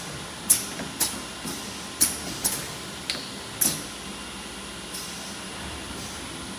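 Four-head PVC window welding machine (Quad OS 4) working: a run of sharp pneumatic clacks, each with a brief hiss, about six in the first four seconds, then only a steady background of machine noise.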